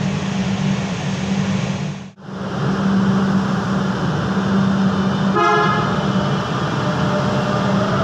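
Série 500 (Frota F) metro train running with a steady low hum, the sound dropping out for a moment about two seconds in. About five and a half seconds in comes a short horn toot, and near the end a rising whine sets in as the train's traction inverters accelerate it away.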